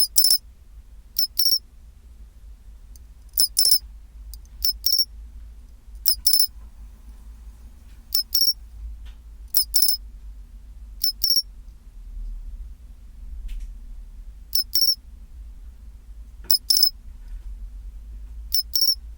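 Japanese pine cricket (matsumushi, Xenogryllus marmoratus) singing its 'chin-chiro-rin' song: short high two-note chirps repeated every one to two seconds, with a pause of about three seconds in the middle.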